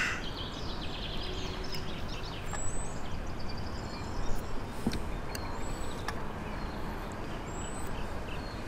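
Outdoor background noise, a steady even hiss and rumble, with a few faint high bird chirps and small clicks now and then.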